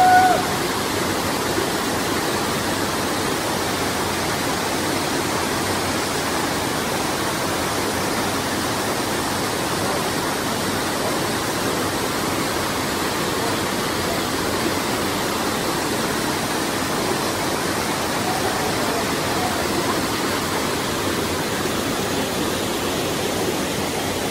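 Waterfall cascades rushing over rock ledges into pools: a steady, even rush of falling water.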